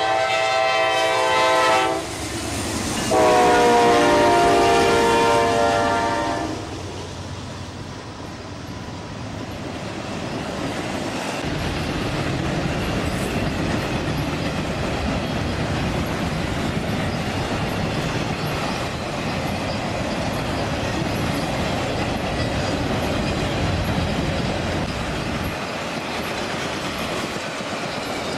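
Norfolk Southern GE Dash 9-40CW freight locomotive blowing its horn: one blast ending about a second in, then a second, louder blast from about three to six and a half seconds. After that the intermodal train's flatcars roll past with a steady rumble and wheel clack over the rail joints.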